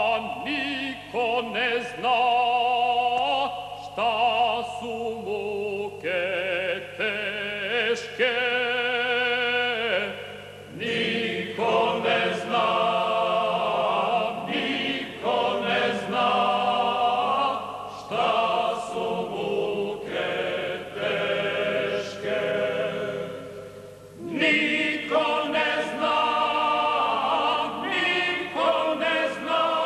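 A Serbian First World War folk song sung in a trained, operatic style with strong vibrato: a man sings alone at first, then a choir comes in about ten seconds in, with orchestral accompaniment.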